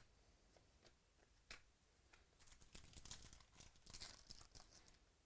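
Faint crinkling and tearing of a trading card pack wrapper: a few light clicks, then a run of crisp crackles from about two and a half to nearly five seconds in.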